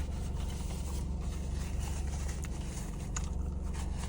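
Steady low hum inside a parked car, with a few faint clicks and rustles, two of them sharper about two and a half and three seconds in.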